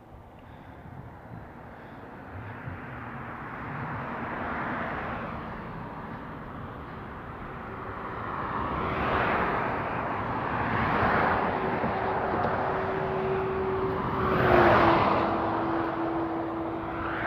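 Road traffic: cars passing one after another, each swelling up and fading. The loudest passes near the end, its hum dropping in pitch as it goes by.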